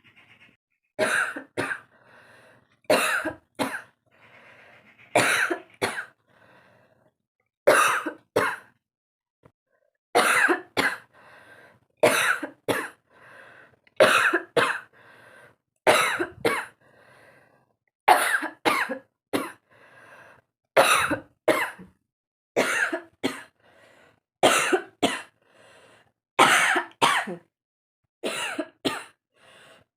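A woman coughing deliberately over and over for a coughing challenge, mostly in pairs of sharp coughs about every two seconds.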